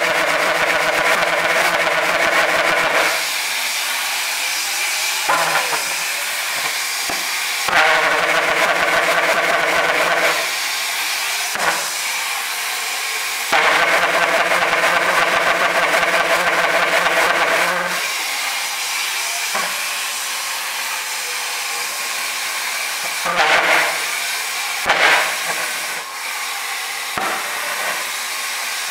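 90 mm pulse jet on a test stand, catching and running in three short stretches of a few seconds each with a loud, steady pitched drone, then dropping out each time. Between the runs there is a quieter hiss broken by scattered sharp pops.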